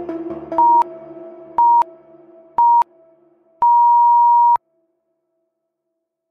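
Workout interval timer counting down the last seconds of a rest: three short electronic beeps about a second apart, then one long beep marking the start of the next exercise. Background music with a steady beat fades out underneath.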